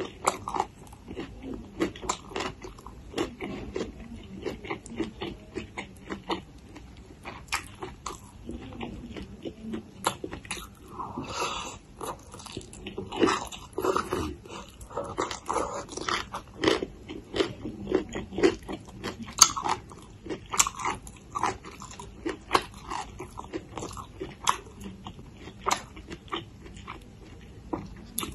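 Close-miked chewing of spicy green papaya salad with raw long beans and tomatoes: a steady run of crunchy bites and mouth clicks, busiest in the middle.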